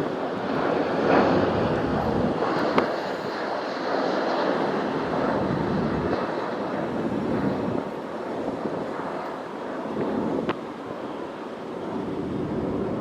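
Jet airliner's engines heard as a steady rushing noise, easing off somewhat in the second half, with a couple of sharp clicks.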